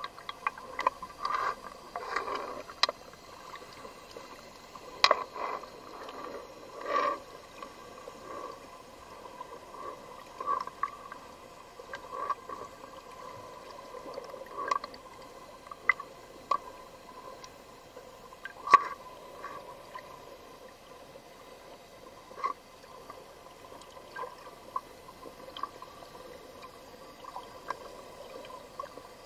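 Water heard with the camera held just under the surface: a steady wash with gurgling, scattered sharp clicks and taps, and a few longer rushes of water in the first several seconds. The sharpest click comes a little past the middle.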